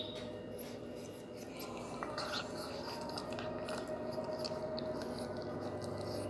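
Pug puppy chewing and nibbling a piece of sweet potato held in a hand: a run of small wet smacks and clicks of its mouth, irregular throughout.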